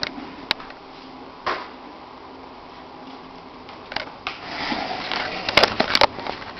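A child's green ride-on toy quad bike moving on a tile floor: scattered clicks and knocks, a brief scrape about one and a half seconds in, and a louder stretch of rustling clatter with several sharp clicks in the last two seconds.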